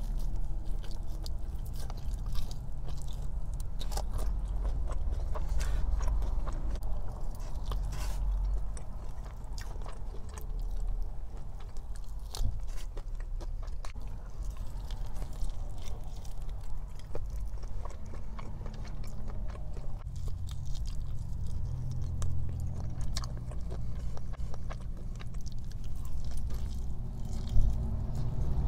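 Close-miked mouth sounds of a person biting and chewing food, a run of small wet clicks and crackles.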